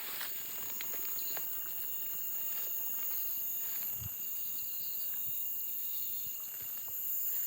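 A steady chorus of insects chirring in several high-pitched bands, with a few faint taps and a soft thump about four seconds in.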